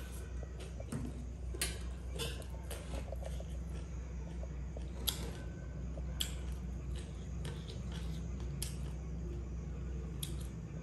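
Eating sounds: chewing with a few sharp clinks of a steel spoon against a ceramic plate, about six in all, over a steady low hum.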